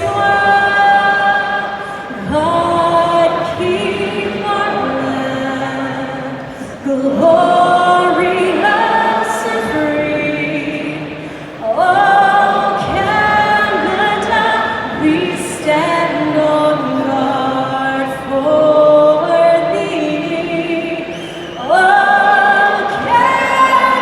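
Singing with musical accompaniment: long held notes in phrases several seconds long, with a large choir-like sound.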